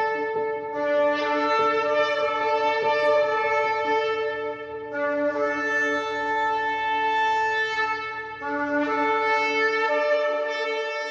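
Shofar-style horn tones held long and steady, one held note giving way to the next about every four seconds, beginning to fade with reverberation near the end.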